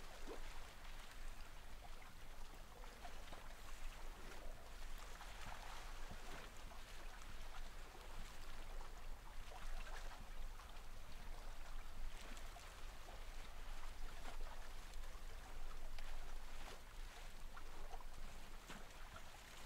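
A person breathing slowly and deeply: soft rushes of air that swell and fade every few seconds, about five breaths in all.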